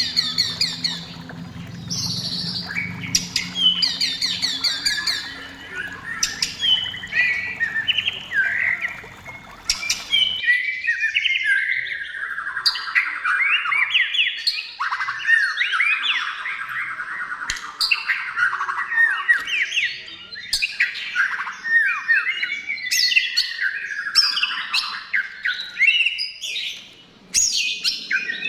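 White-rumped shama (murai batu) singing a rapid, varied song of whistled phrases and fast trills, with harsher notes mixed in.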